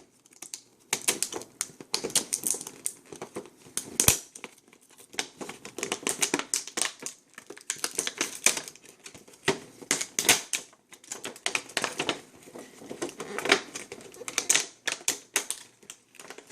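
Trading-card packs being opened and handled by hand: an irregular run of crinkles, clicks and snaps from the foil wrappers and the cards.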